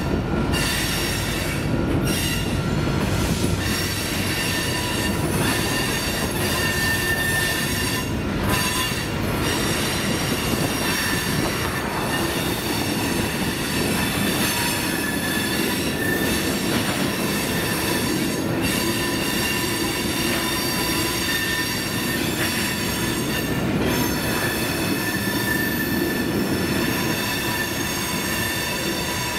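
Train cars rolling past with a steady rumble and high-pitched wheel squeal that comes and goes.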